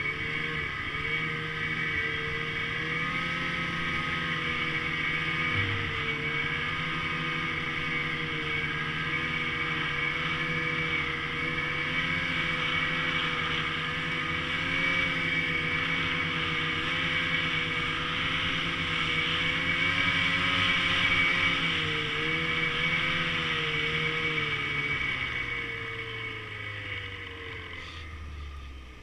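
Ski-Doo Summit 850 E-TEC two-stroke snowmobile running at a steady speed, its engine note wavering a little. Over the last few seconds the pitch falls and the sound fades as it slows down.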